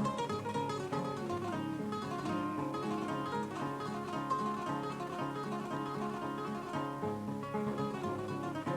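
Kora, the West African 21-string harp-lute, played solo: a steady stream of quick plucked notes over a repeating low bass pattern.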